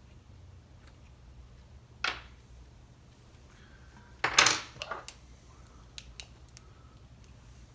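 Hand tools and small metal parts clinking and knocking during chainsaw disassembly: a few separate sharp knocks, the loudest cluster about four and a half seconds in, over a faint low hum.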